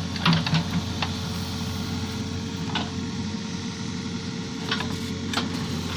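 JCB 3DX backhoe loader's diesel engine running steadily at a low hum, with a few short metallic clicks and knocks from the machine at work.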